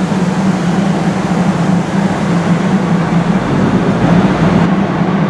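Diesel train engines running with a steady low drone as a diesel railcar pulls slowly into the platform. A deeper rumble swells about three seconds in.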